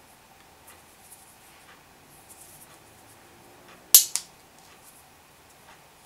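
Two ferrite ring magnets from a microwave magnetron snapping together: one sharp, loud clack about two-thirds of the way in, with a smaller second click just after as they settle. Faint handling clicks around it.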